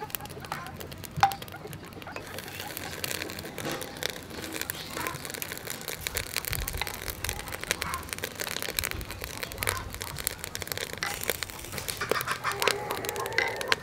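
Clams in the half shell sizzling and crackling on a wire grill over charcoal, with scattered pops and clicks and one sharp crack about a second in.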